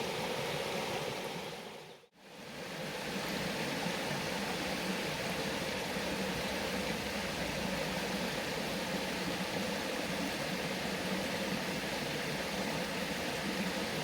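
Steady rushing noise that fades out to near silence about two seconds in and comes straight back.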